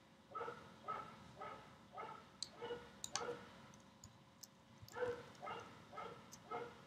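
A dog barking repeatedly in the background, faint, about two barks a second with a pause of a second or so in the middle.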